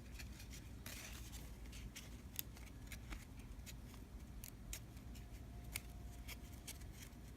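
Faint, irregular soft clicks of baseball trading cards being flipped one by one through a freshly opened pack, over a low steady room hum.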